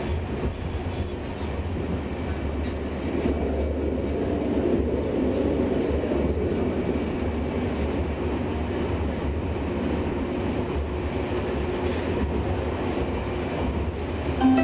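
Stockholm Tvärbanan A32 (Bombardier Flexity Swift) tram running along its track, heard from inside the cabin: a steady low motor hum under the rumble of wheels on rail, with a few faint clicks, growing louder about three seconds in.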